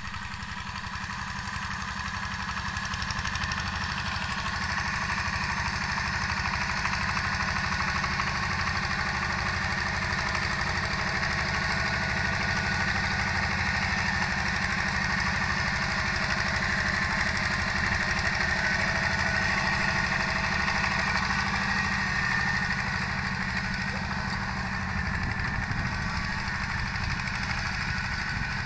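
Hand tractor's single-cylinder diesel engine chugging steadily under load as it pulls a disc plow through the field.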